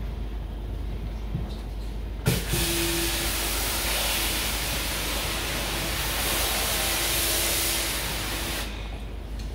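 High-pressure washer spraying water into an air conditioner for cleaning: a loud hiss that starts abruptly about two seconds in and cuts off near the end, with a steady hum under the spray.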